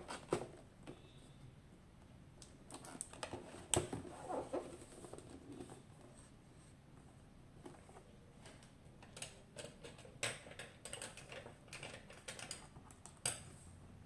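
Hands handling a cardboard camera box on a hard tabletop: irregular light taps, scrapes and rustles of the cardboard, with a few sharper knocks.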